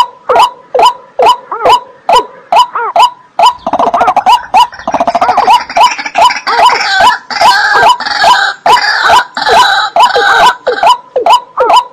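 A wetland bird's call repeated over and over, about two to three short curling notes a second, each starting with a sharp click. From about three and a half seconds in, a second, higher call overlaps it until near the end.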